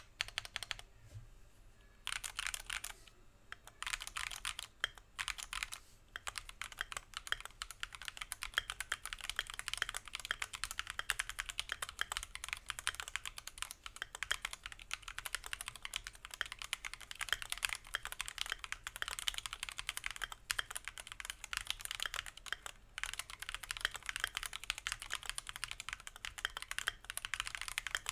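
Fast typing on a Keychron Q2 aluminium-case mechanical keyboard rebuilt with linear switches and Durock V2 stabilizers. There are a few scattered keystrokes, then a dense, continuous run of keystrokes from about two seconds in.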